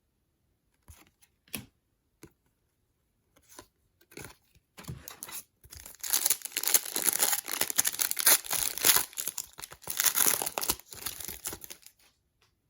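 A few light clicks and taps, then an NBA Hoops trading card pack's wrapper being torn open and crinkled for several seconds.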